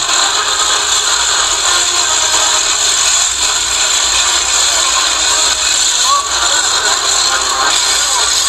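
Many Morenada matracas, hand-spun ratchet noisemakers, whirling together in a dense, steady rattle.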